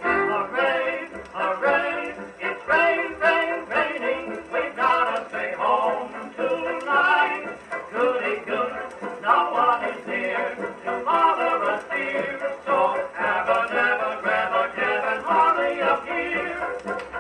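Edison Diamond Disc record of a dance orchestra playing on a New Edison phonograph, with a vocal chorus over the band. The tone is narrow, with little deep bass or high treble.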